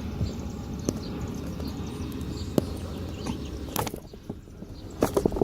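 Cardboard AirPods box being worked open by hand: scattered light clicks and handling noises, with a few more clustered near the end, over a steady low background hum.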